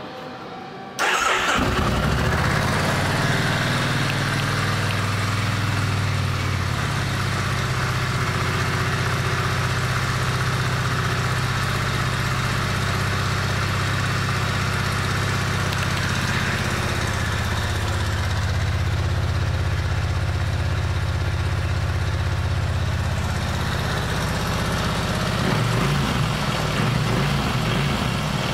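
2005 Kawasaki Vulcan 1500 Classic's V-twin engine starting about a second in, then idling steadily.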